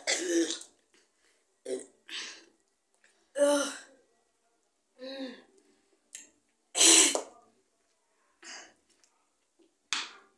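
A series of short burps and throat-clearing noises, about seven separate bursts a second or two apart, the loudest about seven seconds in. The cause is gulping down Coca-Cola fast.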